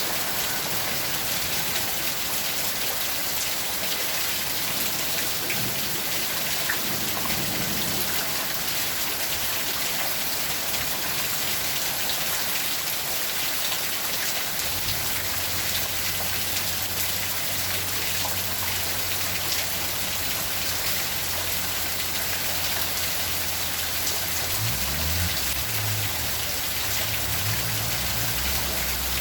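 Steady rain falling: a dense, even hiss of drops with many small individual drop ticks.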